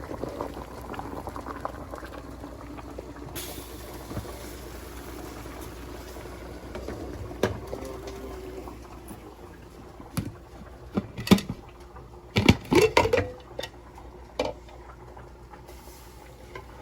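Pot of potatoes boiling steadily. From about ten seconds in, a series of sharp clanks and knocks of pots and utensils being handled, louder than the boiling.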